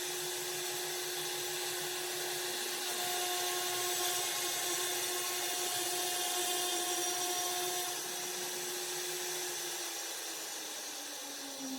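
CNC woodworking machine's spindle running and cutting wood: a steady whine over a hissing cutting noise, louder for a few seconds in the middle. The whine drops in pitch near the end as the spindle slows.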